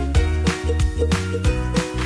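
Background music with a steady beat, about three drum strikes a second under held notes and a bass line.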